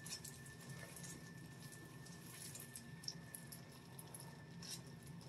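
Faint soft squishing and rustling of gloved hands working thick hair dye through hair, a few light ticks scattered through it, over a steady low room hum.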